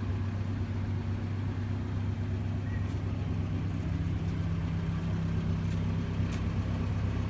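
1988 Nissan Urvan campervan's Nissan Z-series petrol engine idling steadily with an even hum.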